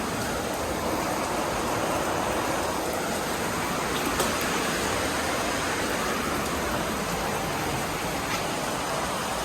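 Steady rain falling, an even hiss with a faint tick about four seconds in.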